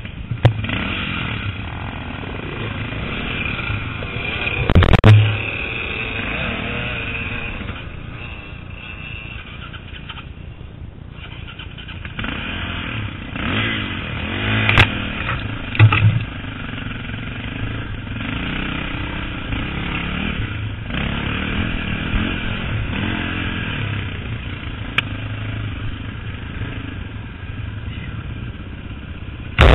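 KTM 450 EXC single-cylinder four-stroke dirt bike engine running under a rider, revs rising and falling as the throttle is worked, with a few sharp loud knocks about 5, 15 and 16 seconds in.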